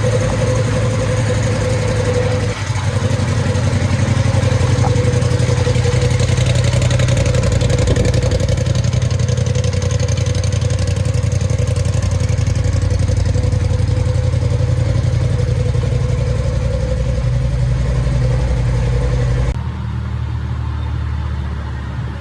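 Turbocharged Polaris RZR engine held at high, steady revs under load in a long burnout, tyres spinning. The sound cuts off abruptly about 19 seconds in to a quieter engine sound.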